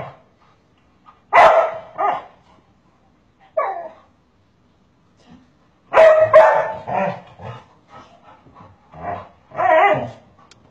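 A dog barking in short runs of several barks, with pauses of a second or more between the runs.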